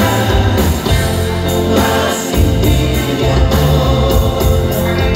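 Live grupera band playing loudly through the PA, with singing over heavy bass and drums.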